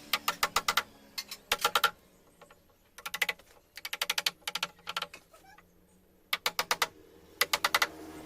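Bursts of rapid mechanical clicking, about five or six sharp clicks at a time, repeated about nine times with short pauses between, from a tool working on the hinge screws.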